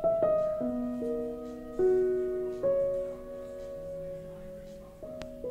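Slow, soft piano background music: single notes and chords struck about once a second, each left to ring and fade.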